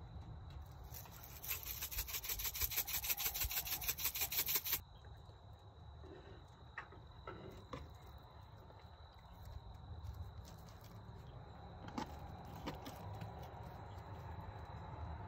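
McCormick crushed red pepper shaker shaken rapidly over the pot: a fast rattle of flakes in the plastic jar, lasting about three seconds from a second or so in. After it come a few soft clicks and taps as raw fish pieces are handled.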